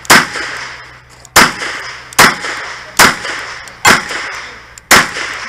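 Revolver fired in a steady string: six loud, sharp shots about a second apart, each followed by a short echo.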